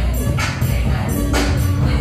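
Loud dance music playing over a lounge sound system, with heavy bass and a steady beat.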